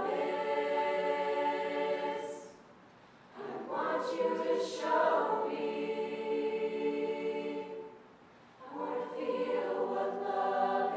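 High school concert choir singing in held chords, with two short breaks between phrases.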